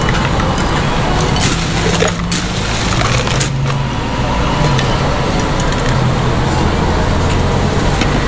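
Steady street traffic noise with a vehicle engine running at idle, its low hum wavering in pitch, and a few light clicks.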